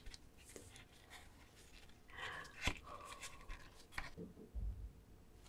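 Shell of a soy-sauce-marinated raw crab squeezed and scraped with gloved fingers, its roe and juices oozing out onto rice: faint wet crackling and rubbing, with a sharp click about two and a half seconds in and another near four seconds.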